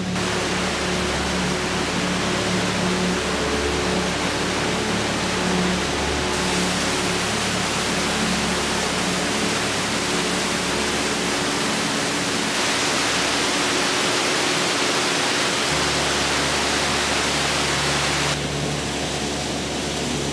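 Waterfall: a steady rush of white water crashing into a pool. It grows brighter about six and twelve seconds in and eases back near the end.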